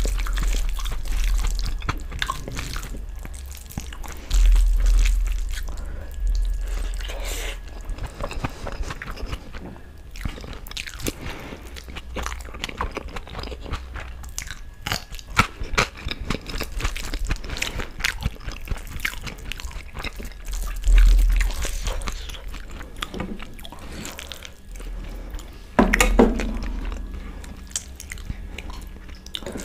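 Close-miked eating sounds: wet chewing and mouth clicks from mouthfuls of rice and dal, mixed with the squelch of a bare hand working rice into dal on a steel plate. A few dull low thuds stand out now and then.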